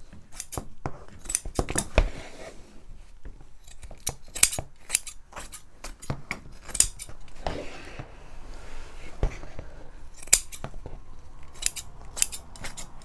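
Scissors snipping repeatedly through muslin, trimming the excess cloth from the edge of an upholstered seat. The cuts come at an irregular pace, with the fabric rustling between them.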